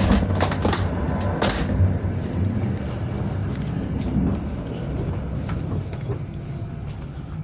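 Passenger train carriage running along the track: a steady low rumble with several sharp clanks and rattles in the first second and a half, the rumble easing off gradually.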